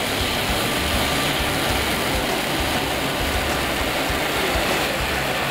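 Pyrotechnic ground fountains (gerbs) burning, a steady loud rushing hiss of spraying sparks that keeps up without a break.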